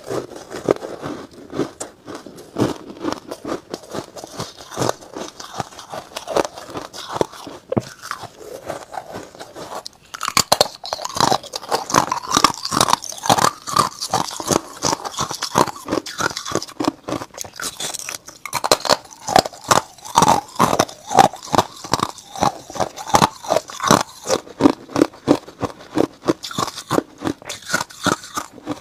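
Close-miked crunching and chewing of ice, several crunches a second. Softer crunching of purple ice blocks at first, then from about ten seconds in louder, sharper crunches of glittery frost-coated ice discs.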